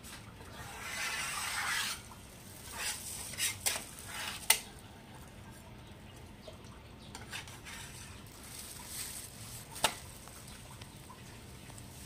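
A metal spatula scrapes and taps on a round jianbing griddle while the egg-topped crepe cooks. There is a stretch of scraping early on, a few sharp clicks about three to four and a half seconds in, and one more sharp tap near the end.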